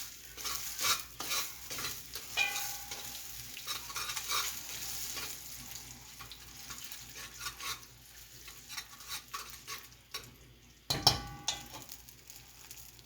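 Chicken sizzling in a hot pot of oil and browned sugar as it is stirred, the spoon scraping and knocking against the pot in quick strokes, busiest in the first half. A louder metal clank comes about eleven seconds in.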